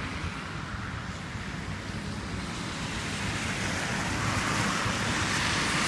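Blizzard wind rushing and buffeting the microphone, a steady noisy roar with low flutter that slowly grows louder toward the end.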